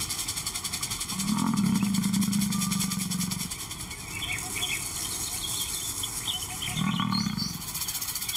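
Male lion giving a long, low call of about two seconds, then a shorter one near the end.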